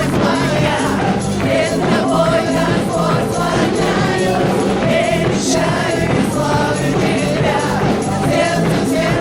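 Live worship music: a band playing with a group of voices singing together over a steady beat.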